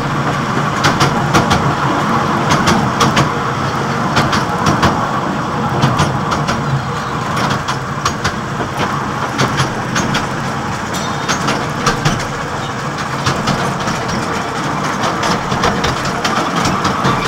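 Open wagons of a trackless road train rolling along a paved street: steady running noise with frequent short rattles and clicks from the carriages.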